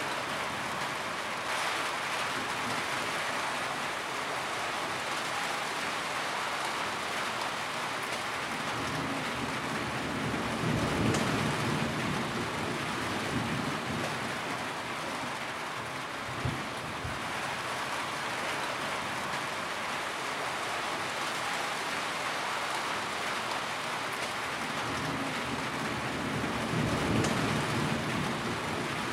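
Rain pattering steadily on a tin roof. Low rumbles of thunder swell up about a third of the way in and again near the end, and there is a single short thump about halfway.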